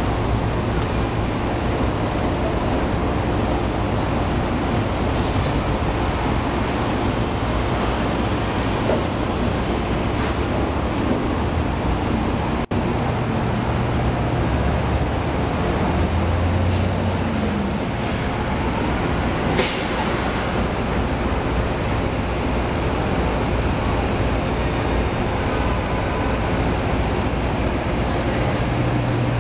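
Steady city street traffic noise: engines running and tyres on the road, with a low hum that swells briefly a little past halfway and a short sharp knock soon after.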